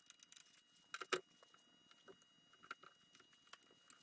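Faint scattered clicks and light metal taps from gloved hands and a wrench working hydraulic hose fittings on a tractor's top-link cylinder, with the sharpest knocks about a second in.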